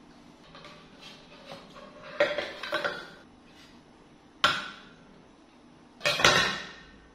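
A plate knocking and clattering against a stone kitchen countertop as a small monkey carries it up and sets it down. There are a few quick clatters about two seconds in, a single sharp knock a little past the middle, and the loudest clatter near the end, ringing briefly.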